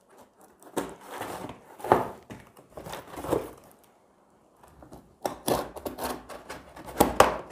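A cardboard shipping box being opened by hand: irregular rustles of paper and cardboard, scrapes and light clicks. There is a short pause a little before the middle, then the handling grows busier.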